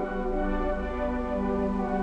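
Background music: sustained orchestral-ambient instrumental chords held steadily.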